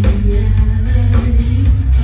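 Live rock band playing loud: electric bass, guitars and drum kit, with a heavy low end.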